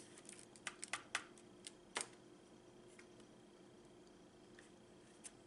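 Faint eating sounds during a sushi mukbang: several short sharp clicks, most within the first two seconds and one more near the end.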